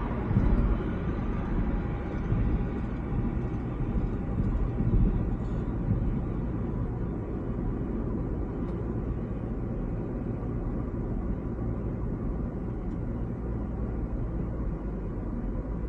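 Steady low rumble of a car driving on a highway: road and wind noise, with a few louder swells in the first six seconds.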